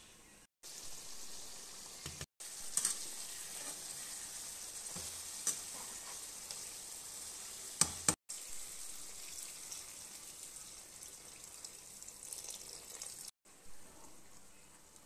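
Curry of potato and vegetable chunks sizzling in a nonstick frying pan, with a slotted spatula clicking against the pan as it is stirred. The sound drops out briefly a few times.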